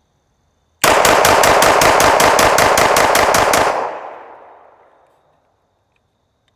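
Walther Creed 9mm pistol firing about sixteen shots in rapid fire, around six a second, emptying a full magazine without a stoppage. The last report echoes and fades over a second or so.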